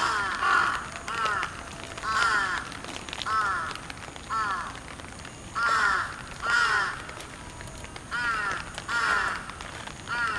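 A bird calling over and over: short arched calls, about one a second, coming in runs of two or three.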